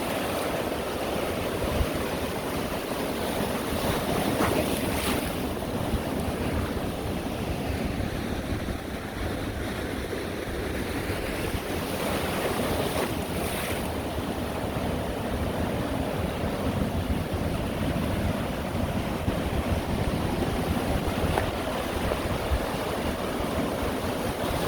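Sea waves breaking and washing on the shore: a steady rush of surf that swells louder twice, with wind buffeting the microphone.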